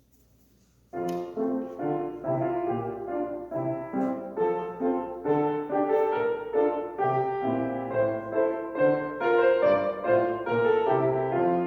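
Piano-style keyboard playing a hymn's instrumental introduction in steady chords and melody, starting about a second in.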